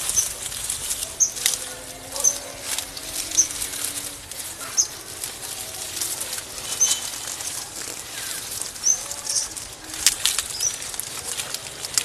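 Footsteps pushing through stiff pineapple plants, the leaves rustling and crackling in short sharp bursts. A short, high chirp, likely from a bird, comes every second or two.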